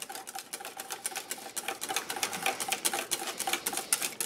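Wire whisk beating a creamy soup-and-chicken-stock mixture in a stainless steel bowl, its wires clicking rapidly and unevenly against the metal.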